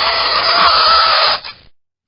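Fingernails scratching across a chalkboard: a loud scrape with a wavering squeal. It stops about one and a half seconds in.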